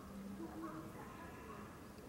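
Faint, indistinct voices of people in the background over low, steady room noise, with no single clear event.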